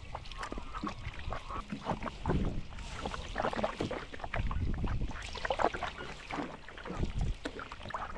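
Kayak paddling: a paddle dipping and splashing, and water slapping against the hull of a small 10-foot Pelican kayak, in uneven strokes with a few dull knocks.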